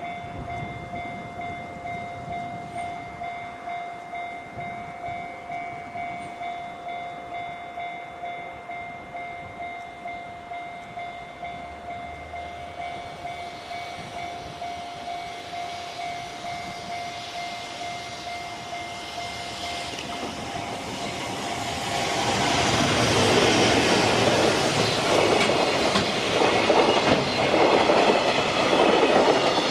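Level-crossing warning bell ringing in a steady, even rhythm. About 21 seconds in, a freight train arrives and passes, its wheels clacking over the rail joints loudly enough to bury the bell.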